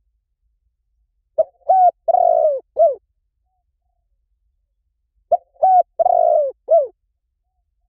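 Spotted dove cooing: two phrases a few seconds apart, each of four coos, the third longest and the last a short falling note.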